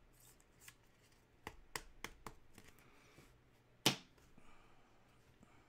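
Trading cards being handled: a few light clicks and snaps, with a sharper snap about four seconds in, and faint rustling between them.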